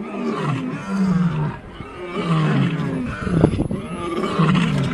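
Male lion roaring: a run of deep grunting calls, each falling in pitch, coming about once a second. A brief cluster of sharp knocks is heard about three and a half seconds in.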